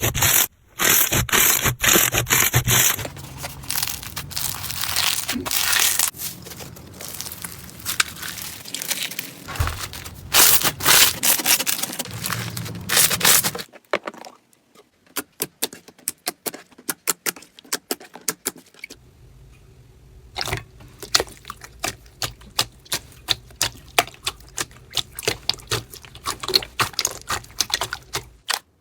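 Slime being squeezed and pressed. For about the first half there is dense crackling and scraping; then, after a sudden change, there are sparse, crisp clicks and pops.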